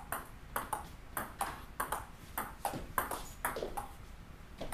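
Table tennis ball clicking off the racket and bouncing on the table as topspin serves are hit one after another, with sharp pings about three times a second, often in quick pairs.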